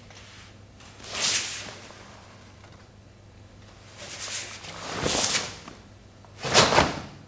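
A karateka's movements during the Goju-ryu kata Seisan: four short whooshing rushes, each about half a second, from the gi and forceful breaths as he strikes and turns. The loudest comes near the end, with a low thud of a step in it.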